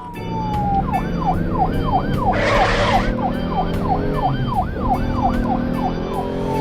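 Cartoon siren sound effect wailing rapidly up and down, about two to three cycles a second, over background music, with a short hiss about two and a half seconds in.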